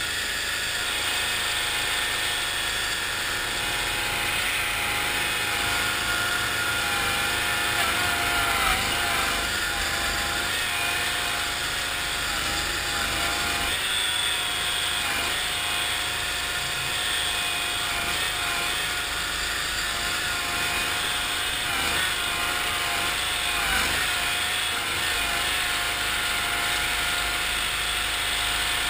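1974 Cushman Trackster's engine running steadily under load as the tracked vehicle drives, its pitch wavering a little.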